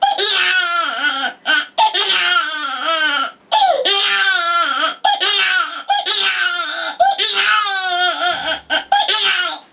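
A boy imitating a crying baby with his voice: a run of high, wavering wails broken by short gaps.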